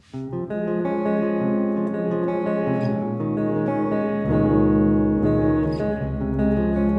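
Electric guitar played clean through a mixing desk, held chords ringing and changing. A deep bass layer comes in about four seconds in.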